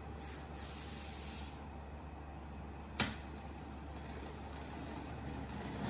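Cardboard packaging being handled and opened: a brief hissing scrape in the first second and a half, then a single sharp click about three seconds in, over a steady low hum.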